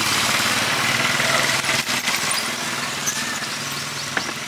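A motor vehicle engine running close by, with a steady low hum over a hiss. It is loudest about a second in and eases off toward the end, and a couple of light clicks come near the end.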